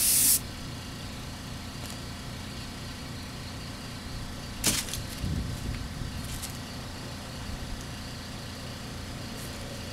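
Gravity-feed air spray gun spraying clear coat hisses for a moment and cuts off just after the start. A low steady rumble remains, with one sharp click about four and a half seconds in and a few faint handling noises.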